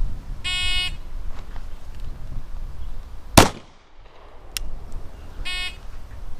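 Shot timer beeps to start, and a Glock 19 9mm pistol fires a single loud shot about three seconds later, followed by a fainter sharp click. The timer beeps again at the end of the 5-second par time.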